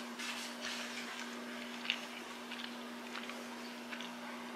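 A person chewing food with the mouth closed: soft, scattered chewing sounds with a small click about two seconds in, over a steady low hum.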